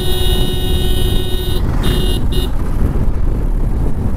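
A vehicle horn honks one long blast of about a second and a half, then two short toots. Underneath is the steady low rumble of wind and road noise from riding.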